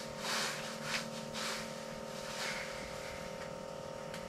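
Soft, brief rustles of hands handling fishing line while a knot is retied, over a steady faint hum.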